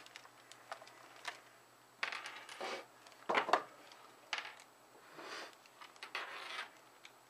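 A plastic wall charger and in-ear earphones with their cable set down on a wooden tabletop: a series of light knocks and clatters with short rustling scrapes, the loudest knock about three and a half seconds in.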